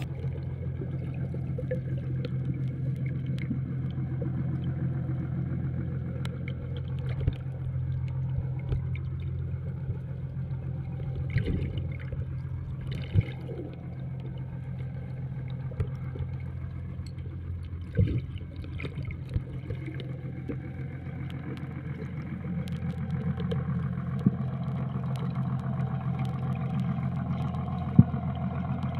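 A fishing boat's engine running with a steady low hum, with a few short knocks now and then.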